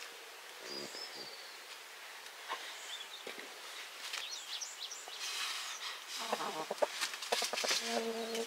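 Small birds chirping, in short high calls that sweep up and down in pitch. From about the middle on they are joined by a run of sharp clicks and knocks, and a short low steady tone comes near the end.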